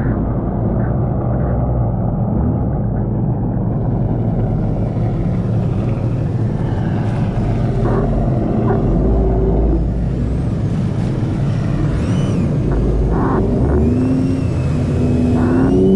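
Jet ski engine running on open water, with the rush of water and wind over the mounted camera. About halfway through it runs slower, and near the end its pitch rises as the throttle opens again.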